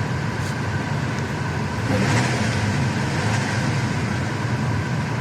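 BMW E90's N46B20 four-cylinder petrol engine idling with steady, even revs. A new ignition coil on cylinder two has cured the misfire.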